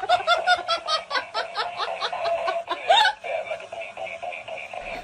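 Rapid high-pitched laughter, a run of quick 'ha-ha' bursts at about five a second that ends about three seconds in, followed by softer, fainter sounds.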